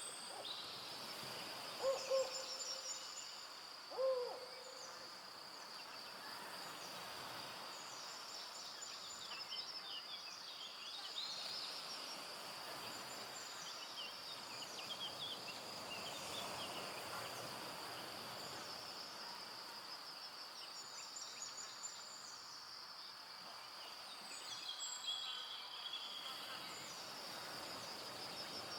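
Forest ambience at dusk: a steady high insect drone and scattered small-bird chirps and trills throughout, with two loud low calls, one about two seconds in and one about four seconds in, the second sliding up in pitch and back down.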